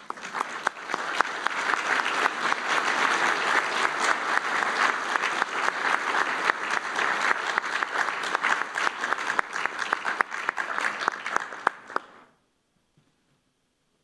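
Audience applauding: dense, steady clapping that swells within the first second and stops abruptly about twelve seconds in.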